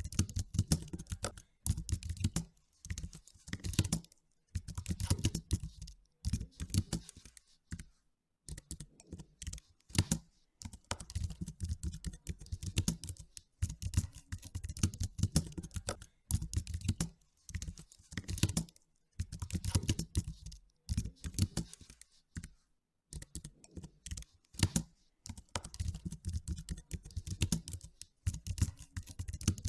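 Typing on a computer keyboard: runs of rapid key clicks broken every few seconds by short pauses.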